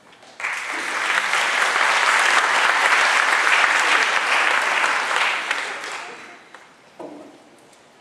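Audience applauding, starting about half a second in, holding steady, then dying away after about six seconds.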